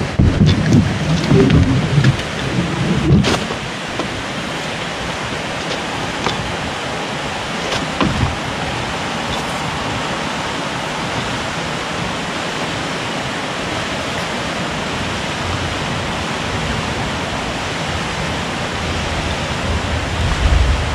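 An inflatable stand-up paddleboard bumping and knocking as someone climbs onto it, with a sharp knock about three seconds in. After that a steady rushing hiss carries on, with a few faint ticks.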